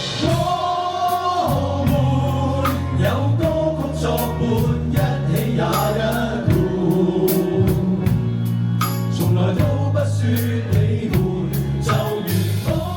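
Cantonese pop song performed live: voices singing over a band, with held bass notes and regular drum hits.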